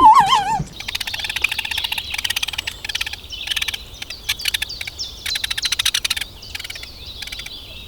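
Animal calls: a short, loud wavering call at the start, then a chorus of rapid pulsed trills repeating in trains with short gaps.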